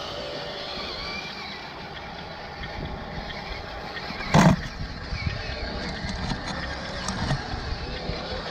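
Radio-controlled construction models working: a faint steady motor whine over outdoor noise, with one loud knock about halfway through and a few lighter clicks after it.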